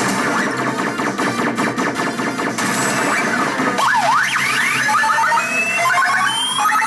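Pachinko machine's electronic jackpot sound effect: a dense, jangling clatter, then about four seconds in, swooping electronic tones and quick rising runs of beeps.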